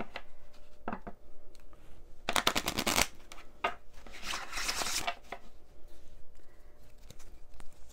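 A deck of tarot cards being shuffled by hand: two quick runs of rapid card flutter, about two and a half and four and a half seconds in, with a few single card clicks between.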